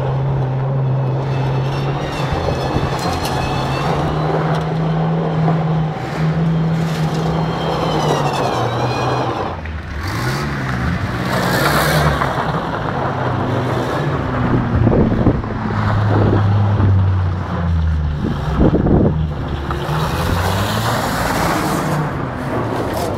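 Banger car being driven around a yard, its engine revving up and down over and over. A high whine rises and falls with the revs at times.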